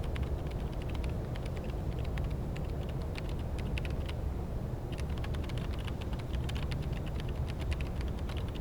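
Runs of quick, irregular light clicks, with short pauses between the runs, over a steady low hum.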